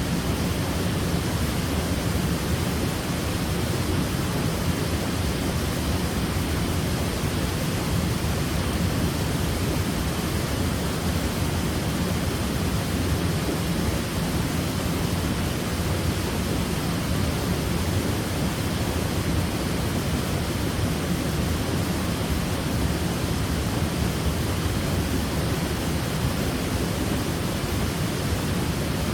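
Waterfall pouring steadily: a constant, even rush of falling water with a deep low rumble and no breaks.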